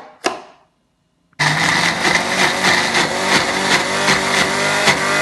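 Two sharp clicks, then about a second and a half in a Philips blender's motor starts abruptly and runs at a steady speed, grinding peas, mushrooms and spices in its small chopper jar.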